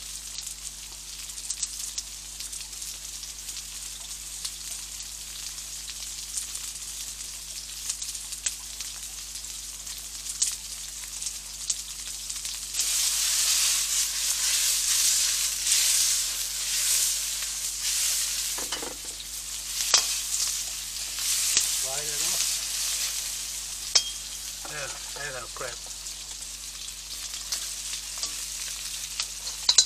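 Onion and chilli sizzling in hot oil in a frying pan, with stirring. The sizzle grows louder for about five seconds about halfway through. A few sharp clicks come near the end.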